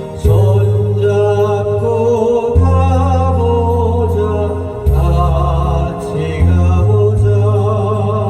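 Korean popular song sung over a backing accompaniment track, with a bass line that changes note every second or two.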